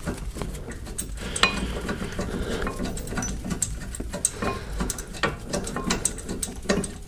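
Irregular small metallic clicks and scrapes of a rusty brake caliper bracket being rocked against its rotor while its mounting bolt is turned out by hand.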